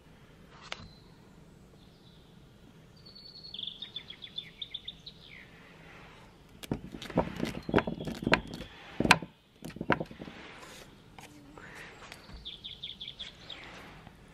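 Birds chirping in quick high trills, twice. In between, the loudest part: a couple of seconds of sharp knocks, clicks and scraping as a dog paws at a moss-covered stone on wooden boards.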